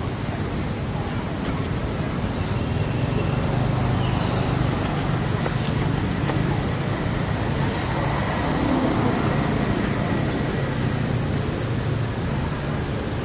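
Steady outdoor background noise: a low rumble with a constant thin high-pitched whine above it, and a few faint clicks.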